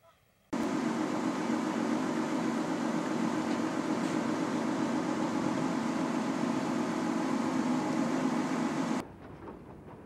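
Loud, steady mechanical drone of barn machinery such as ventilation fans. It starts abruptly about half a second in and cuts off suddenly about a second before the end.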